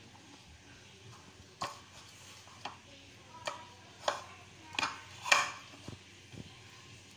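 Kitchen handling sounds: about six light, sharp knocks and clicks, unevenly spaced, the loudest a little past halfway through, as bowls, utensils and a plastic container are handled while marinating chicken.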